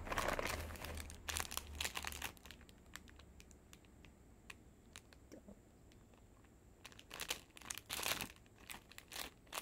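Plastic candy wrapper crinkling as it is handled, in clusters of crackles in the first two seconds and again about seven to nine seconds in.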